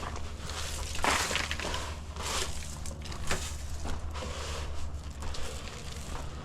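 Irregular crunching and rustling, with louder crunches roughly once a second, over a steady low rumble.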